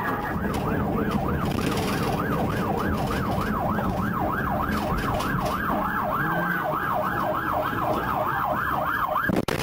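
Police cruiser siren in fast yelp mode, its pitch sweeping up and down about three times a second over engine and road noise, cutting out briefly near the end.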